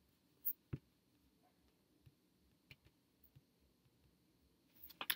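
Faint computer clicks in a quiet room: two sharp clicks about half a second in, a few very faint ticks after them, then a quick run of keyboard key presses near the end as typing begins.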